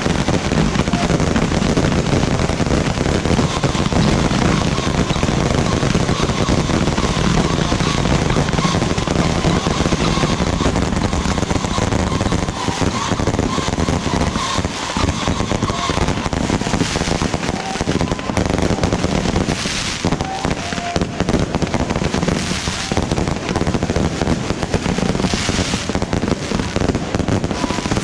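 Dense, continuous crackling and popping of firecrackers and fireworks going off in rapid succession, with no pauses.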